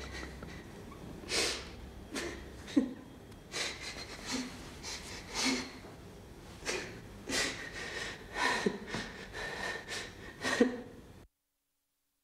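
A woman sobbing, with ragged gasping breaths and sniffs about once a second; the sound cuts off suddenly near the end.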